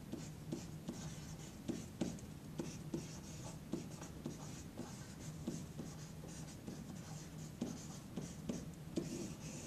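Marker pen writing on a large sheet of chart paper pinned to a wall: a quiet run of many short, irregular pen strokes as the letters are written.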